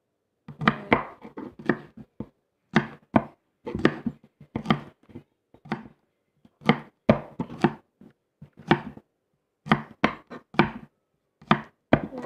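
Small kitchen knife slicing green beans into small pieces against a cutting board: sharp, irregular chops, about two a second.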